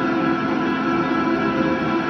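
Electric guitar played through a pedalboard of effects and loop pedals: a steady drone of several sustained tones over a haze of noise, with no distinct notes or attacks.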